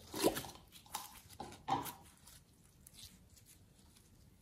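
Red glitter slime being squeezed and stretched by hand, giving a few squeaky, wet squelches as air is pressed out of it in the first two seconds, then fainter sticky crackles as it is pulled apart.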